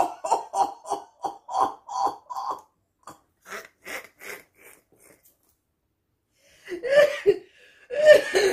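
A woman laughing hard: a quick run of loud "ha" bursts, about four a second, then fainter breathy, wheezing laughter, and two more loud outbursts near the end.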